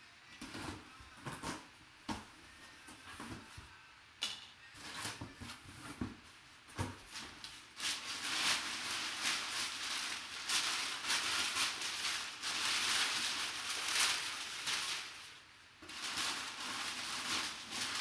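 A sealed cardboard box being opened by hand: scattered taps and clicks, then about eight seconds in a long stretch of dense rustling and tearing as the packing is pulled apart. The rustling stops briefly and starts again near the end.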